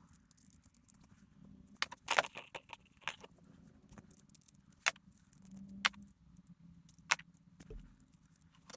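Small metal parts and tools clinking and tapping in a handful of irregular sharp clicks, typical of handling parts while taking an engine apart.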